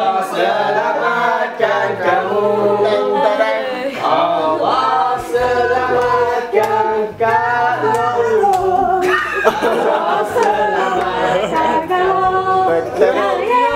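A group of people singing a birthday song together, with some hand-clapping.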